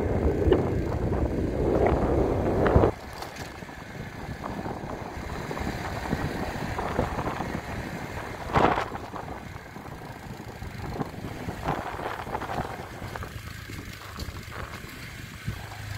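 Motorcycle riding on a dirt road: a loud rush of wind on the microphone for about the first three seconds, then a quieter, steady mix of engine and tyre noise, with a single knock about nine seconds in.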